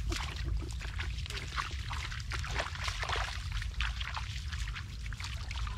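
Bare feet squelching and splashing through wet mud and shallow puddles, an uneven run of wet steps, over a steady low rumble.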